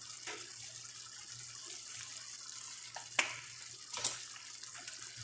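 Pan of tomato sauce boiling on a gas stove, a steady bubbling hiss, with two sharp clicks a little over three and four seconds in.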